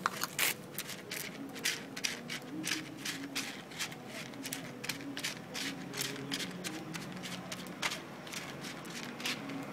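A cat eating wet food from a tray, its chewing and lapping making quick, irregular wet clicks, about three or four a second.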